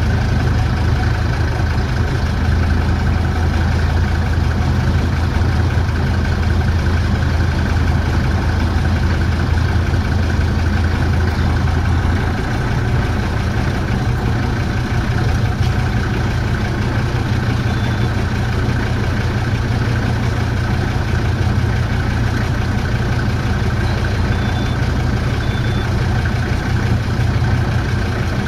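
Motorboat engine running steadily at slow speed, heard from on board. Its low drone steps up in pitch about twelve seconds in.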